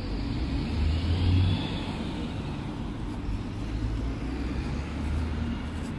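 Road traffic: cars passing on a road, a steady low rumble that swells about a second in and again later as vehicles go by.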